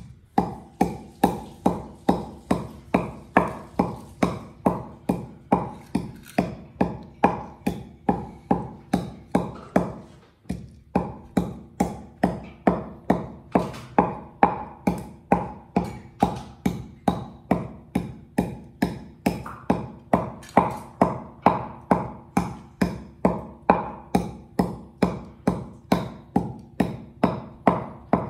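Wooden pestle pounding in a wooden mortar, steady knocks at about two a second, each with a short woody ring. The pounding breaks off briefly about ten seconds in, then carries on at the same pace.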